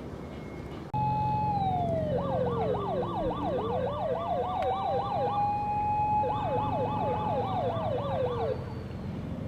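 Electronic siren of a fire command car, Osaka Siren make, sounding wail and yelp together: a long tone that falls, rises again and falls, overlaid with rapid yelp sweeps about four a second. It comes on abruptly about a second in and winds down near the end.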